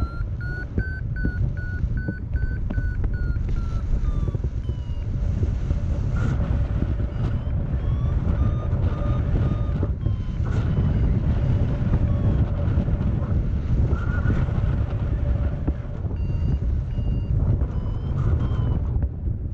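Paragliding variometer beeping, its pitch rising and falling as the climb rate changes: climb tones, the sign of the glider rising in lift. Steady wind rumbles on the microphone throughout.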